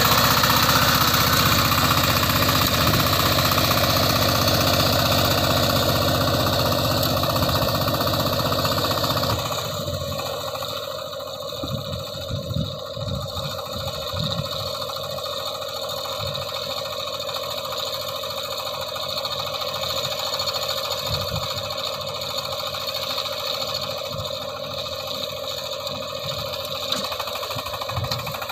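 Power tiller's single-cylinder diesel engine running under load while it churns a flooded paddy field with cage wheels and a rotavator. It is loud and close at first, then about nine seconds in it drops suddenly to a quieter, more distant running sound.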